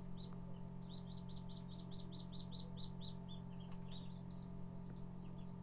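Small birds chirping in quick runs of short, high peeps, several a second, over a steady low hum.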